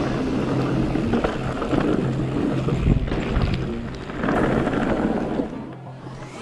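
Wind buffeting the camera microphone and tyre rumble from an electric mountain bike riding fast over a gravelly forest trail, with a low steady hum underneath; it fades near the end.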